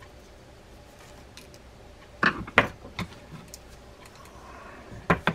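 Small clicks and light knocks from a screwdriver and the metal and plastic body of a Shimano Sedona 4000R spinning reel being handled while a small clip screw is started. A cluster of sharp clicks comes about halfway through and two more near the end.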